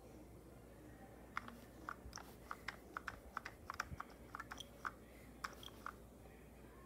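Faint, irregular plastic clicking from a battery smoke alarm being handled and pressed, about eighteen quick clicks starting about a second in, with no alarm tone sounding. The alarm is failing; its owner is unsure whether the battery is dead or the unit is malfunctioning.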